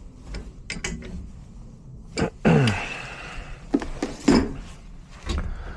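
Hand tools clinking and knocking against the metal of a gas furnace as its gas valve is being removed, several sharp separate strikes. About two and a half seconds in there is a short loud vocal sound, falling in pitch, like a grunt or throat-clear.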